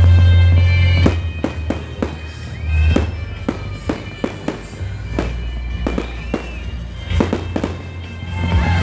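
Aerial fireworks shells bursting overhead: a run of sharp, irregular bangs and cracks starting about a second in, with music playing underneath.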